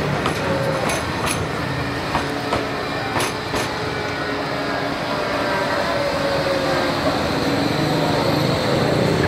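A large vehicle running past with a steady running noise and a whine that slowly rises and falls, broken by a few sharp clicks, a pair of them about three seconds in.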